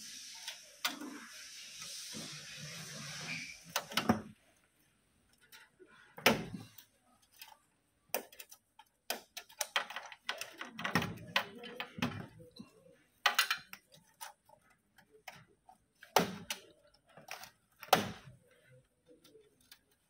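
Plastic cable connectors being pulled off a Toshiba e-Studio 2021AC copier's circuit boards, with the wiring harness handled against the sheet-metal frame: irregular sharp clicks, snaps and small knocks with short quiet gaps between them. A hissing noise runs through the first four seconds and stops.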